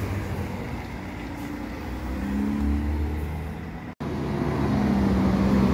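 Diesel engines of intercity coaches running as they move slowly past: first one coach pulling away with its engine note rising, then, after an abrupt break about four seconds in, another coach's engine at a steady note.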